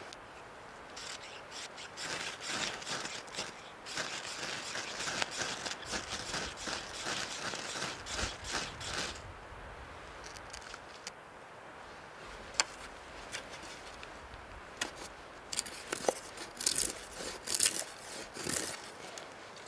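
Knife blade scraping in quick repeated strokes for several seconds, starting about a second in. After that come a few single sharp scrapes, then a short cluster of harder strokes near the end.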